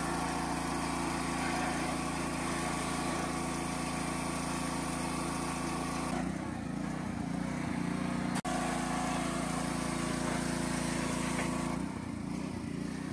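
Small gas-engine pressure washer running steadily, with the hiss of its water spray. The engine note shifts a couple of times, and the sound breaks off for an instant a little past the middle.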